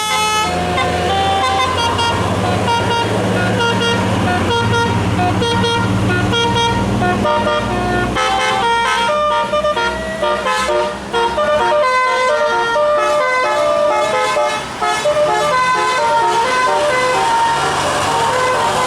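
Bus 'telolet' musical air horn playing a long melody of short, stepped notes. A low rumble runs under it until about eight seconds in, then drops away.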